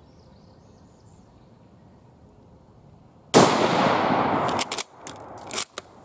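A single shot from a Type 99 Arisaka rifle in 7.7 Japanese, firing a hand-loaded round, about three seconds in, its report ringing and fading over about a second. It is followed by several quick metallic clacks as the bolt is worked to eject the case and chamber the next round.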